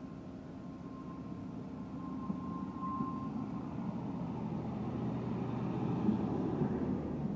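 A British Rail Class 153 single-car diesel multiple unit pulls away, its underfloor Cummins diesel engine running under load and growing louder as the car passes close by. A thin, steady high whine sounds over the engine for the first few seconds.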